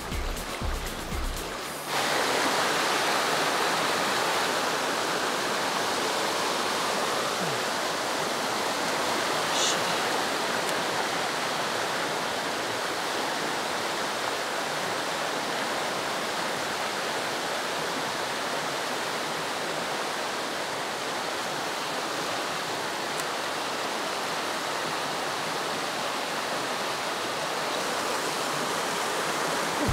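Background music for about the first two seconds, then an abrupt cut to the rushing of a stream pouring over a small rocky cascade and riffles. The rush is loud and steady.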